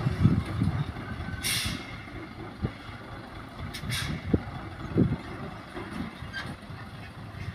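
Hyundai 5-ton dump truck's diesel engine running as the loaded truck drives slowly over rough dirt, with low thumps from the body and a short hiss of air about one and a half seconds in.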